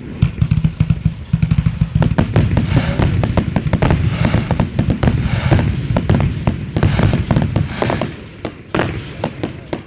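Fireworks going off in a rapid barrage: many sharp cracks several times a second over a continuous low rumble of booms, easing slightly near the end.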